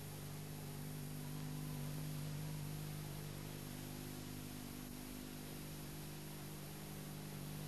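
Steady electrical hum with tape hiss from a worn video-tape transfer, with no other sound over it.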